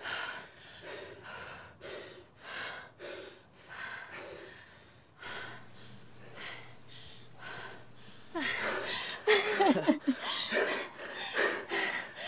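A person breathing hard in quick gasps, about two breaths a second. About eight and a half seconds in, the breaths grow louder, with a brief voiced sound that wavers in pitch.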